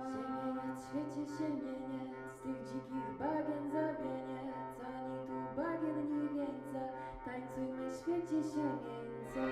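Polish folk music: a steady low drone under a melody that slides up into long held notes several times, with faint light ticks above.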